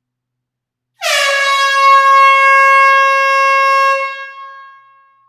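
A single long air horn blast starting about a second in. It is one steady, high, brassy tone whose pitch dips slightly as it begins, held for about three seconds before fading away.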